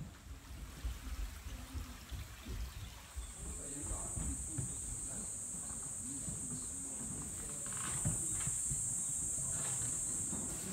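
Cicadas buzzing in one steady, high-pitched drone that starts about three seconds in and holds unbroken. Faint murmured voices of people are underneath it.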